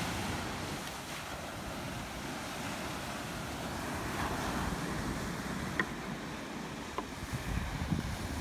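Ocean surf washing onto a sandy beach, with wind buffeting the microphone. Near the end come a few light knocks of a knife on a wooden cutting board.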